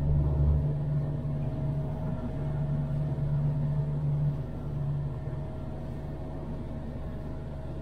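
A boat's engine running steadily while underway, heard inside the pilothouse cabin as a low, even hum with a faint steady tone above it; the deepest part of the hum drops away about half a second in.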